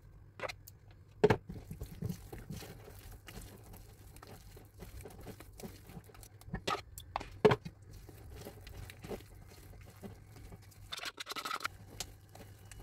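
Wire whisk stirring thick cake batter in a bowl as yogurt is mixed in, a soft wet patter with a few sharp knocks against the bowl, the loudest about a second in and about halfway. A brief scraping sounds near the end.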